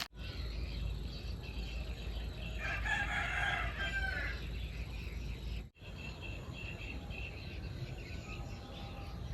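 A rooster crowing once, a call of about two seconds that ends on a falling note.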